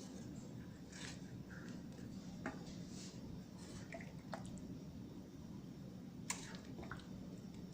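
A pot of chicken noodle soup simmering quietly on the stove, with a few faint, soft clicks scattered through.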